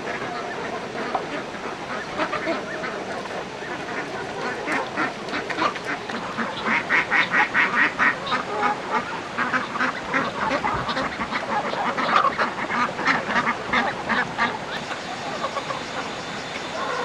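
A flock of farm poultry calling: many quick, repeated calls overlapping, loudest about halfway through and again a few seconds later.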